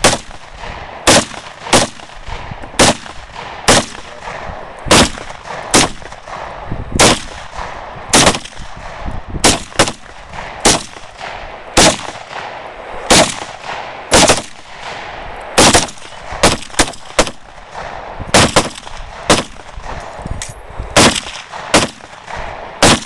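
Semi-automatic rifle fire: about two dozen single shots at roughly one a second, now and then two in quicker succession, each with a short echo.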